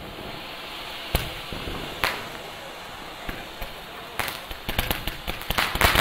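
Fireworks display: two sharp bangs of shells bursting about one and two seconds in, over steady background noise. From about four seconds in comes a rapid crackle of many pops, growing denser toward the end.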